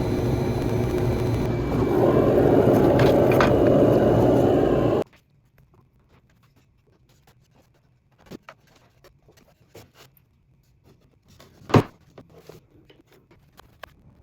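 A workshop machine running loud and steady for about five seconds, growing louder about a second and a half in and then cutting off abruptly. Light clicks and handling taps follow, with one sharp knock near the end.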